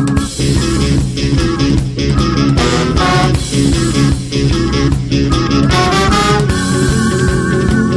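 Ska band playing an instrumental passage with no singing: electric guitar and bass over a steady drum beat, with quick rising melodic runs about three and six seconds in.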